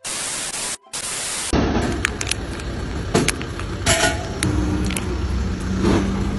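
Loud TV static hiss, the sound of a colour-bar transition effect, lasting about a second and a half with a brief dropout. It is followed by a steady low rumble with scattered clicks and rustles.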